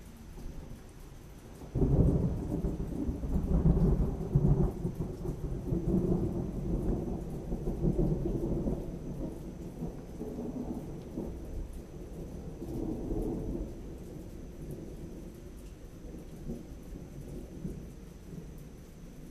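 Thunder: a deep rumble that breaks in suddenly about two seconds in, rolls on in several swells and slowly dies away over the next fifteen seconds or so.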